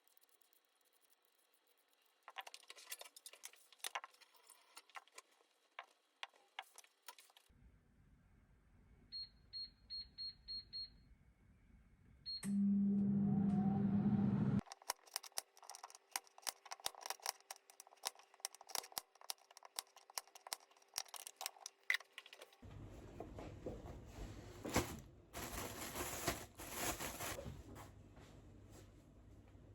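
Indoor household sounds: scattered clicks and taps, then a run of six short electronic beeps like an appliance's keypad, followed by a loud steady hum for about two seconds. Dense clicking and rustling follow.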